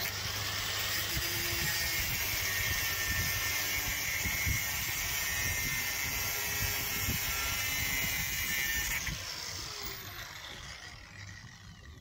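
Corded angle grinder with a cut-off disc cutting through steel bolt ends, a steady harsh grinding. About nine seconds in it is switched off and its whine falls away as the disc spins down.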